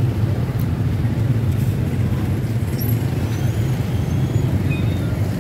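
Steady low rumble of motor vehicles and traffic noise.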